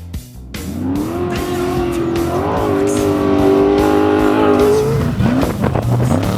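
Off-road race vehicle engine revving up and holding at high revs, with a brief dip and climb about five seconds in. Background music with a beat plays under it.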